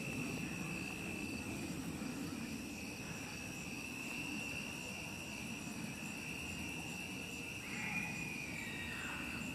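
Steady chorus of crickets at night, a continuous high trill, with a faint brief gliding sound about eight seconds in.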